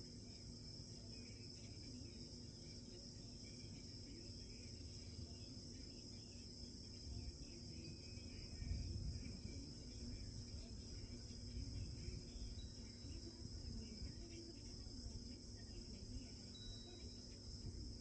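Faint, steady high-pitched trill of crickets, with a low rumble swelling about nine seconds in.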